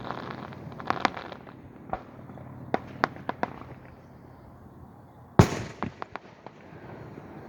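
Aerial fireworks: scattered sharp pops and crackles, then one loud boom about five and a half seconds in, followed by a few smaller pops.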